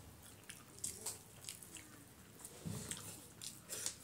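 Quiet eating by hand: fingers squishing rice and chicken curry against steel plates, with scattered wet mouth smacks and small clicks while chewing.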